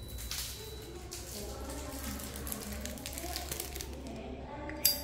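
Rustling and light knocks of a Zippo lighter being picked up and handled, with one sharp click just before the end.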